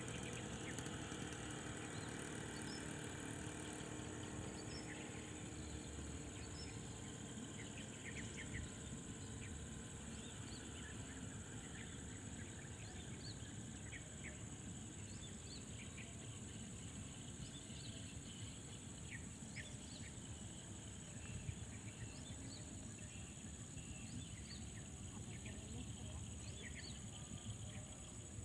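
Steady high-pitched insect drone with many short chirps scattered through it, over a faint low rumble.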